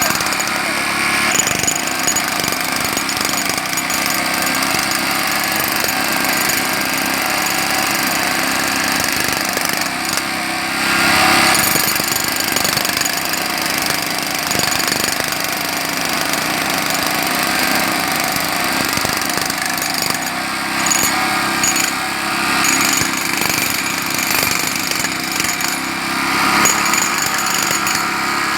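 Jackhammer hammering continuously, a dense rapid chatter that swells louder about eleven seconds in and again near the end.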